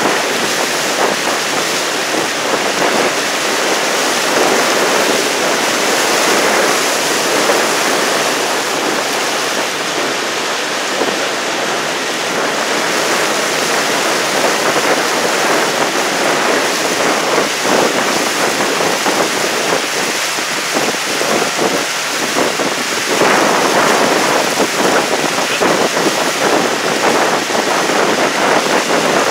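Steady rush of water from a boat moving through calm water, mixed with wind noise on the microphone.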